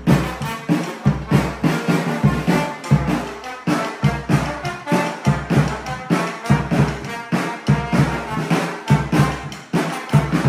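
Live rehearsal of a trombone playing a melody over a steady beat on a large bass drum.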